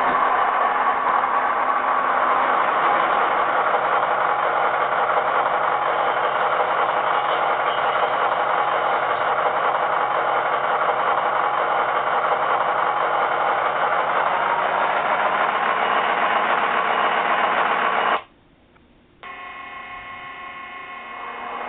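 Onboard sound system of a Broadway Limited Blue Line HO-scale GE AC6000 model locomotive playing a diesel engine running, through a small speaker. About 18 seconds in the sound cuts out for about a second, then comes back quieter and slowly builds, typical of this analog-controlled model's sound shutting off and restarting as it starts to move.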